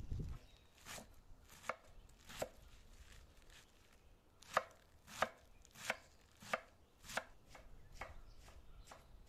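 A knife chopping fresh spinach and coriander on a stone surface: about a dozen separate strikes at an unhurried pace, three early on, a short pause, then a steadier run of cuts with the loudest in the middle.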